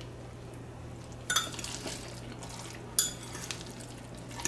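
Metal fork clinking against a bowl of noodles, three short sharp clinks about a second and a half apart.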